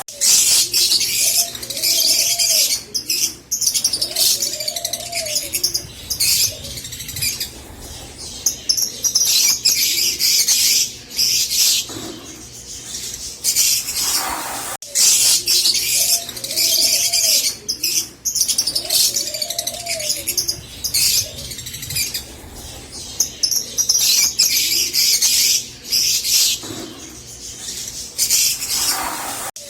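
Green Fischer's lovebirds singing: long bursts of rapid, high chattering twitter, broken by short pauses, with a few lower arching calls underneath.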